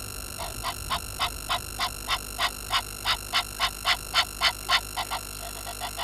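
A frog calling at a waterhole: a steady series of short croaks, about three a second, swelling louder towards the middle and weaker near the end.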